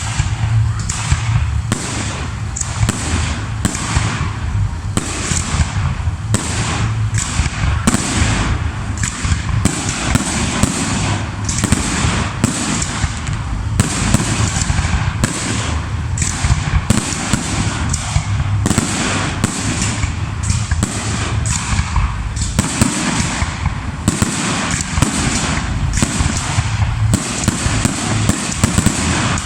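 Fireworks display: aerial shells bursting in quick, near-continuous succession, about two bangs a second, over a low rumble.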